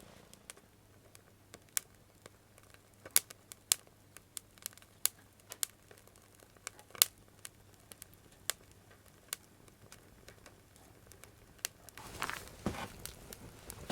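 Wood fire crackling, with sharp pops at irregular intervals. Near the end, rustling and crinkling of something being handled.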